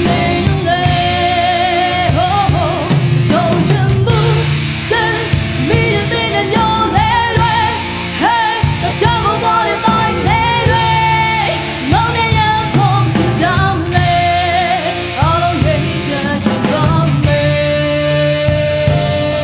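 A woman singing a Burmese pop song into a microphone, holding notes with a wavering vibrato, over a live band with drums.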